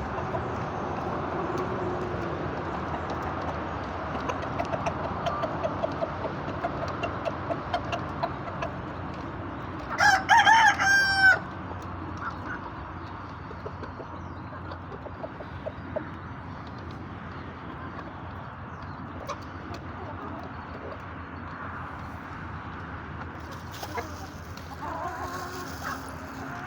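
Chickens clucking in a rapid series of short calls, then a rooster crows once, loudly, about ten seconds in, lasting roughly a second and a half.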